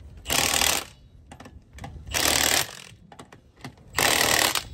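Milwaukee cordless impact wrench hammering in three short bursts about a second and a half apart, re-tightening lug nuts on a wheel, with faint clicks between bursts.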